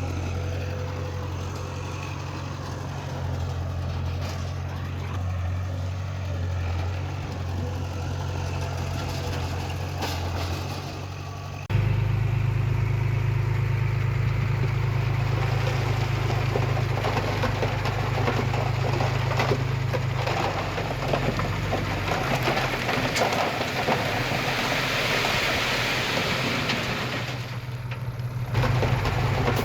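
Diesel engines of heavy earthmoving machines running steadily. About twelve seconds in the sound jumps abruptly louder, and a gritty, rattling noise runs with the engine through the middle before dropping away near the end.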